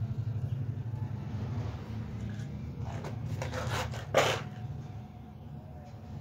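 A few scrapes and rubs with one sharp knock about four seconds in, over a steady low hum.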